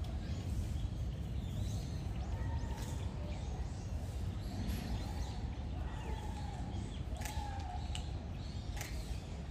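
Steady low background rumble, with a few faint high chirping calls and several light sharp clicks in the second half.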